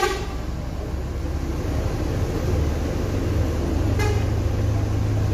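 Mercedes-Benz coach's diesel engine running with a low, steady drone that grows louder in the second half as the bus starts to move off. A horn gives two short toots, one right at the start and one about four seconds in.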